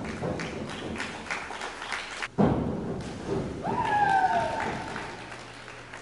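Teammates clapping and cheering, with a sharp thud about two and a half seconds in and a falling whoop about a second later.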